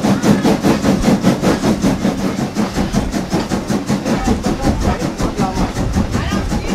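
Baldwin 2-10-0 Decapod steam locomotive working close by, a fast, even pulsing of about six or seven beats a second that eases slightly over the few seconds.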